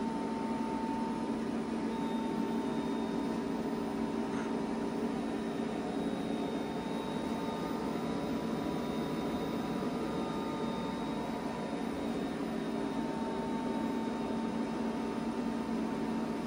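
Two EG4 6500EX-48 48-volt inverters running just after power-up while charging the battery bank: a steady hum with cooling-fan noise and a faint high whine.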